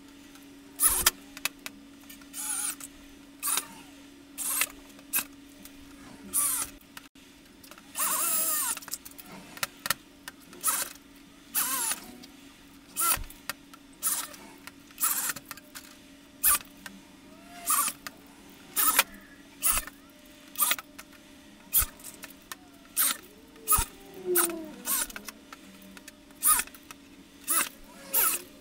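Corded electric drill driving short self-drilling screws through wire trunking and rail into a steel mounting plate, in short bursts about once a second, with one longer run about eight seconds in.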